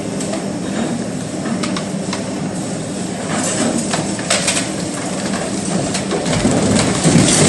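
Takeuchi excavator's diesel engine running under load, with scattered knocks and crunches of concrete and rubble. Near the end there is a louder, deeper crash of heavy demolition debris.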